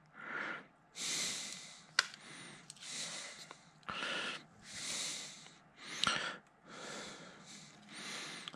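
A man's breathing close to the microphone, an airy breath about every second. Sharp clicks come about two seconds in and again about six seconds in.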